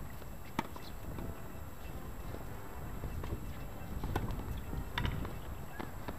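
Tennis ball being struck and bouncing on a hard court: a few sharp pops, one shortly after the start and two more about four and five seconds in.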